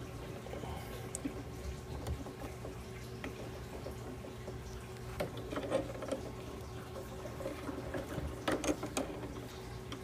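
Hands and needle-nose pliers working a plastic suitcase wire connector onto wires: soft rustling with a few small clicks, over a faint steady hum.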